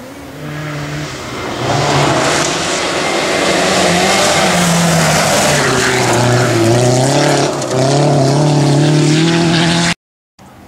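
Volkswagen Golf Mk4 rally car driven hard on a gravel stage, its engine note rising as it approaches and passes close by, with gravel and tyre hiss under it. The engine note dips briefly once, about three-quarters of the way through, and the sound cuts off abruptly near the end.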